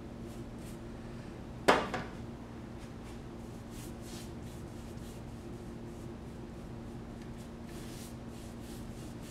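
A sharp knock, with a smaller one just after, about two seconds in as the stretched canvas knocks against the wooden easel. Then faint scratchy strokes of a paintbrush laying acrylic paint along the canvas edge, over a steady low room hum.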